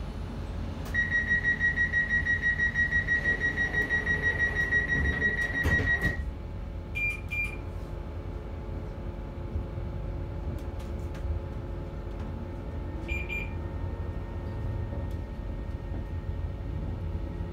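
Train door-closing warning alarm: a loud, rapidly pulsing electronic beep for about five seconds, signalling that the doors are about to close before departure. It is followed by a couple of short electronic beeps a second or so later and again several seconds after, over the low hum of the stationary train.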